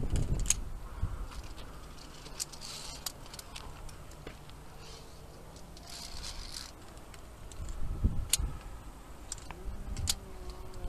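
Via ferrata climbing gear: metal carabiners clicking and clinking against the steel safety cable and iron rungs. Heavier knocks come near the start and about eight seconds in.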